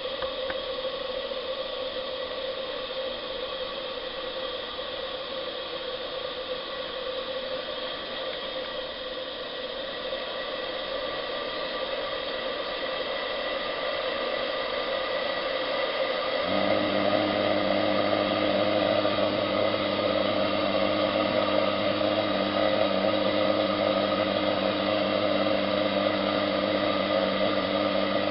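Butane gas burner running steadily inside a model steam boiler's flue: a gentle hiss of burning gas. About two-thirds of the way through, a low steady hum sets in suddenly and the sound grows a little louder.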